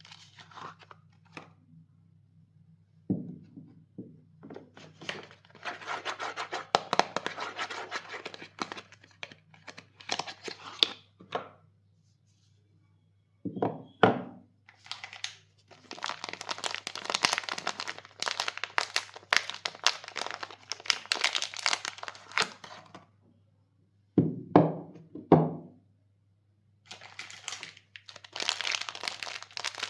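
Soap bar wrappings being crinkled and torn open in repeated bouts of dense crackling, with a few short soft thunks in between.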